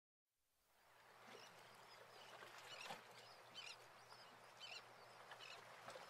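Faint outdoor-style ambience fading in, with soft, high chirps repeating about once a second.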